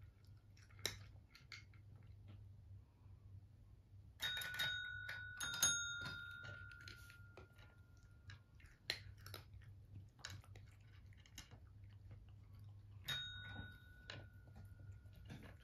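A desk call bell is dinged about four seconds in and struck again a couple of times, its tone ringing on for several seconds; it is dinged once more near the end. Between the rings, cats chew and crunch food with small clicks.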